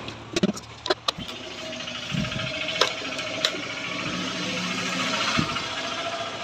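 A few sharp clicks and knocks in the first second, then a steady mechanical whirring hum with two more clicks partway through.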